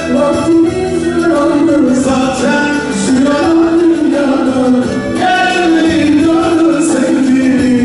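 A man singing live into a microphone with held, wavering notes, backed by an ensemble of violins and plucked strings.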